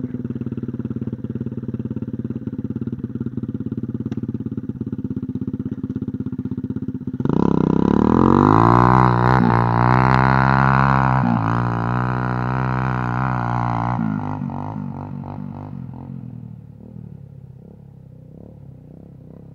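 Pit bike engine idling steadily, then about seven seconds in the throttle opens and it revs hard as the bike pulls away, its pitch rising and dipping for several seconds before the sound fades into the distance.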